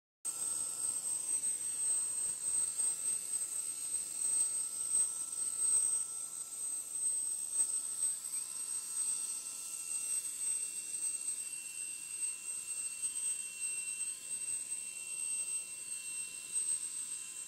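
Sikorsky HH-60G Pave Hawk helicopter starting up on the ground: a steady high turbine whine, joined about eight seconds in by a second whine that rises in pitch and then holds steady.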